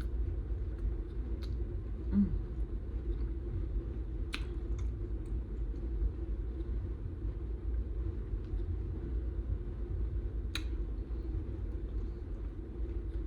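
Close-up eating of a burrito: chewing with a few sharp mouth smacks, the clearest about four and ten and a half seconds in, over a steady low rumble.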